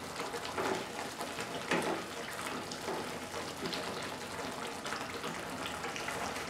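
Spinach-and-curd gravy bubbling and sizzling in a kadhai as a wooden spatula stirs fried potato pieces through it, with a couple of soft spatula scrapes in the first two seconds, then the gravy simmering on its own.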